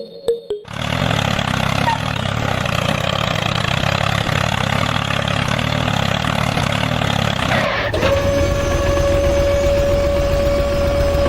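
A motor running steadily, starting suddenly just under a second in. About eight seconds in the sound changes and a steady high whine joins it.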